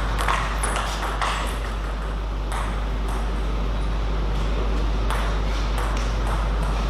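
Table tennis balls clicking against bats and table in uneven hits, a cluster in the first second and a half and more after about five seconds, over a steady low hum.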